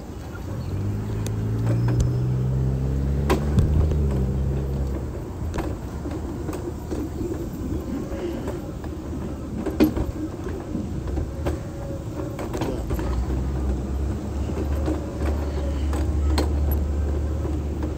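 Street traffic: a passing car's engine hums for the first few seconds and fades, then a low rumble builds toward the end. Scattered sharp clicks and knocks come throughout.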